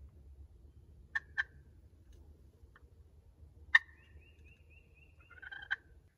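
Wild turkey clucking: a few short, sharp notes, with two close together, a louder single one in the middle and a quick run of notes near the end.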